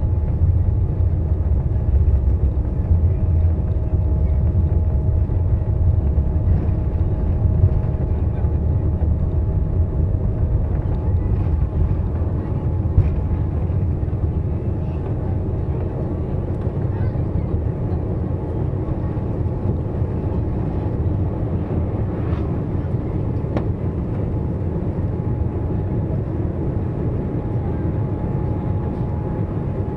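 Cabin noise of a Boeing 787-8 on its takeoff roll and climb-out: the jet engines running at takeoff power with a steady whine, over a heavy low rumble from the runway that eases somewhat about halfway through as the aircraft gets airborne.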